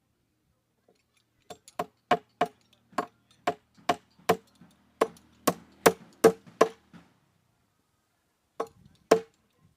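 Sharp blows struck on wood in quick succession, about a dozen at two to three a second, then a pause and two more near the end.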